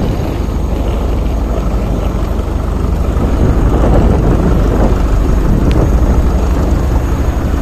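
Loud, steady rumbling roar of aircraft noise on an airport apron, heaviest in the low end, with no distinct pitch.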